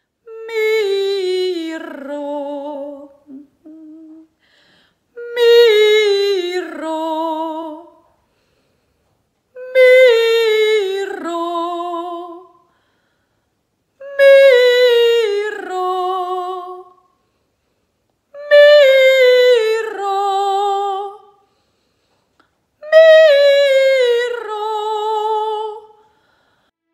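A woman's trained lyric singing voice doing a resonance vocal exercise: six phrases, each a descending run that ends on a held note with vibrato. Each repeat starts a half step higher.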